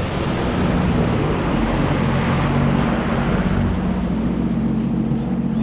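Sea-Doo GTX 170 jet ski under way, its three-cylinder engine running steadily under the rush of water spray from the hull and jet.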